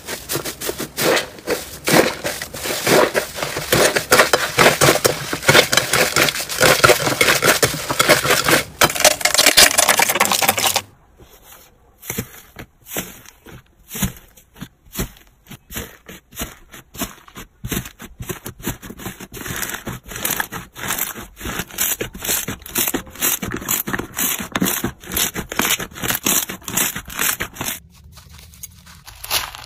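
Hands squishing slime. For the first 11 seconds a fluffy slime is kneaded with a loud, dense crackle. After that, a hand pressing into a tray of blue slime with small beads makes sharp, separate clicks and pops several times a second, and near the end a hand pushes into foam beads.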